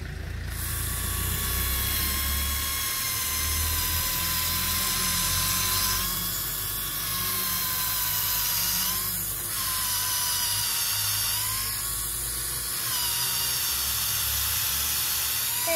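Cordless drill boring into a birch trunk, its motor whining steadily and dipping briefly in pitch three times as the bit works into the wood: drilling a tap hole to collect birch sap.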